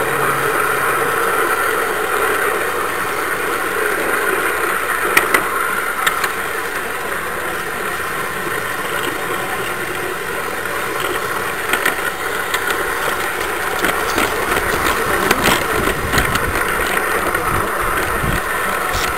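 Garden-scale model train running along its track, a steady rolling and drive noise with a few sharp clicks along the way.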